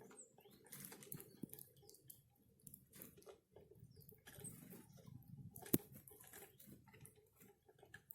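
Faint, irregular tapping and nibbling of small birds feeding, with a few short high chirps. One sharper click comes just before six seconds in.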